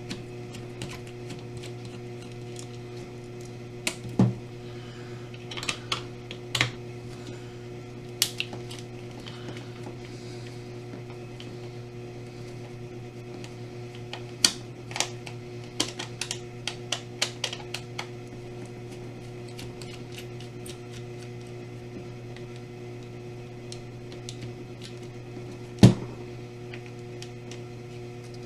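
Scattered clicks and taps of a screwdriver working tight screws out of a plastic Atari joystick case, in irregular clusters with one sharper knock near the end, over a steady low hum.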